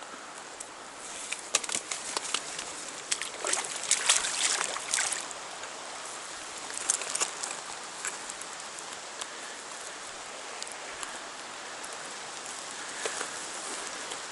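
River current rushing steadily, with bursts of splashing and sloshing water during the first five seconds and again around seven seconds in.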